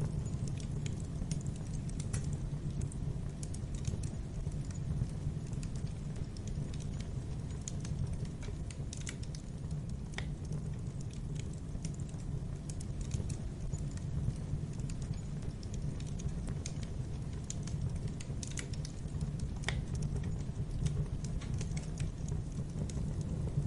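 Wood fire crackling in a fireplace: a steady low rumble with scattered sharp crackles and pops, a few of them louder.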